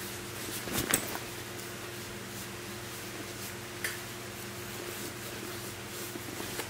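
Light handling noises: a short run of rustling and clicks about a second in, then one sharp click with a brief ring near four seconds, over a steady low hum.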